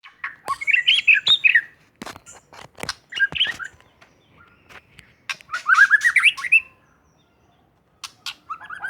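White-rumped shama (murai batu) singing: four short bursts of fast, varied whistled notes, with sharp clicks between the phrases.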